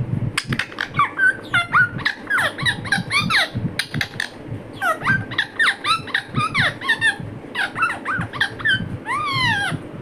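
Indian ringneck parrot making a rapid run of short, squeaky chirps and chatter while pecking at boiled corn, with sharp clicks mixed in.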